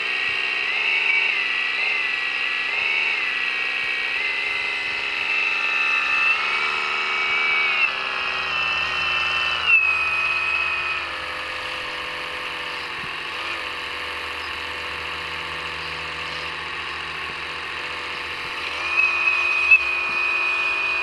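Small electric motors and gears of a radio-controlled skid-steer loader whining as it drives and works its bucket in dirt, the pitch stepping up and down as the motors change speed, with a few short knocks.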